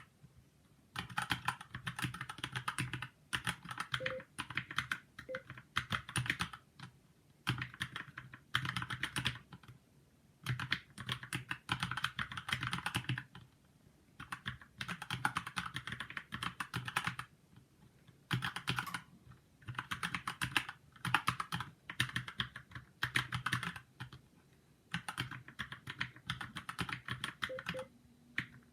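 Fast typing on a Keychron keyboard: quick runs of rapid key clicks lasting a second or two, broken by short pauses.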